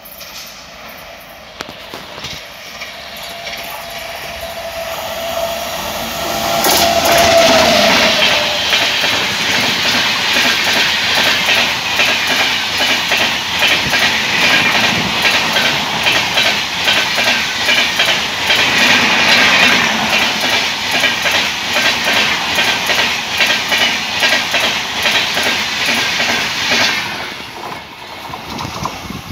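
Electric-hauled express passenger train approaching and passing at speed. A rumble grows and a steady tone rises with it, dipping slightly in pitch as the locomotive goes by about seven seconds in. Then comes a long run of fast, rhythmic wheel clatter from the coaches on the rails, which falls away near the end as the last coach recedes.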